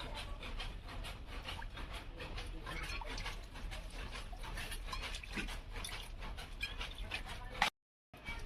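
Metal pressure cooker being scrubbed by hand with a scourer: a continuous, irregular scratchy scraping. It cuts out briefly near the end.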